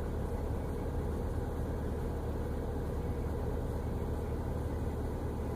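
2004 Subaru Forester's flat-four engine running steadily with the accelerator held lightly down. It is kept just above idle because it cuts off when let back to idle: a hard-starting engine with a rough idle.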